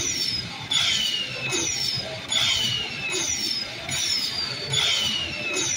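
Aristocrat slot machine's win-tally sound effect: a falling electronic tone repeats a little faster than once a second while the bonus coin values are added to the winner total.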